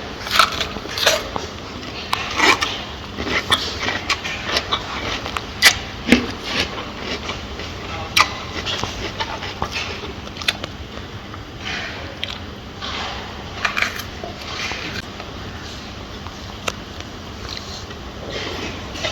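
A gorilla eating: irregular crunches and snaps as it bites and chews its food.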